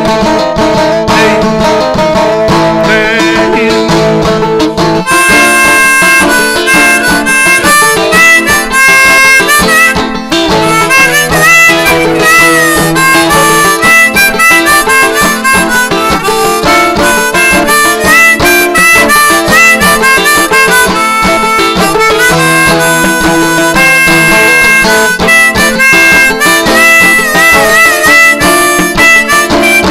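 Instrumental break on a Hohner harmonica played in a neck rack over an open-back Gold Tone banjo; the harmonica melody comes in about five seconds in, over the steady banjo picking.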